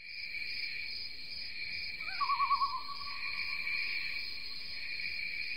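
Night ambience of insects chirping steadily, with an owl giving one short quavering call about two seconds in.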